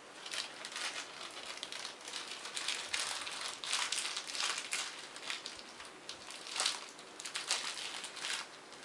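Crinkling plastic and small clicks of hands rummaging through a bag of computer-case screws, an irregular run of light rustles and ticks.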